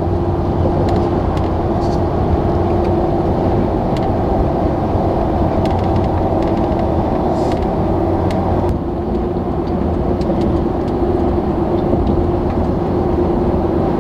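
Ford pickup truck heard from inside the cab while cruising at highway speed: steady engine and tyre road rumble with a constant hum, easing slightly about nine seconds in.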